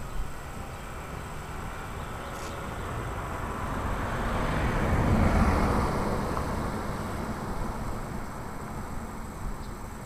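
A car passing by on the street, its tyre and engine noise swelling to a peak about halfway through and then fading away.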